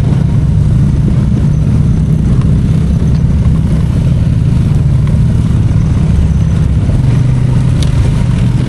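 ATV engine running steadily as the machine rides along a trail, heard from on board.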